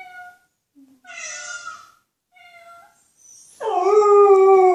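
Three short cat meows, then a dog breaks into a long, loud howl about three and a half seconds in, its pitch sinking slowly as it is held.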